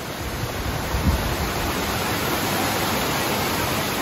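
Amicalola Falls: a steady, loud rush of falling water, with a brief low bump about a second in.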